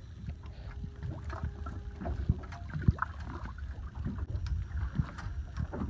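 Motor boat running underway with a steady low engine rumble, broken by short irregular splashes and knocks of water against the hull.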